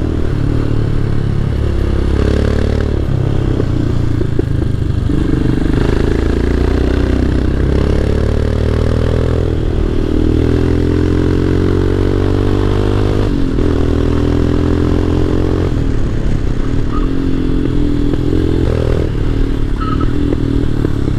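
Royal Enfield Himalayan's 411 cc single-cylinder engine running loud under way, its pitch climbing with the throttle and falling back several times.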